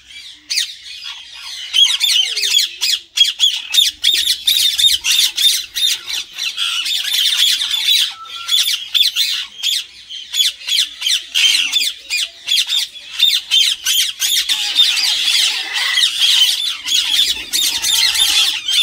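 A flock of Indian ringneck parakeets calling at once: a dense, unbroken chatter of shrill squawks.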